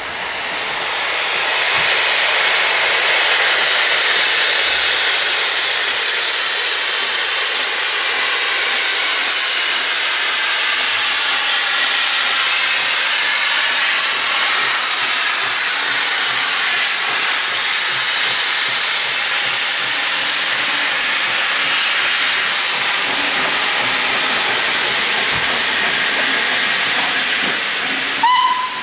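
Steam locomotive letting off steam: a loud, steady hiss that holds almost the whole time. Near the end comes a very short whistle pip.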